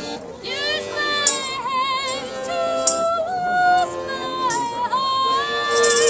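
A woman singing with vibrato to her own piano accordion, which holds steady chords under the melody. Sharp tambourine jingles sound a few times.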